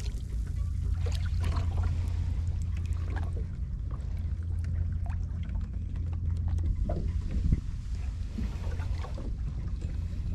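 Two-stroke outboard motor on a small boat running steadily under way, a constant low drone, with water splashing and noise from the hull over it.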